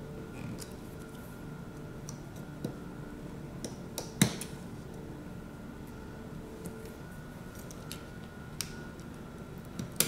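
Small scattered clicks and handling noise as a pry tool and fingers work the flex-cable connectors on a phone's logic board. The sharpest click comes about four seconds in and another near the end, over a low steady hum.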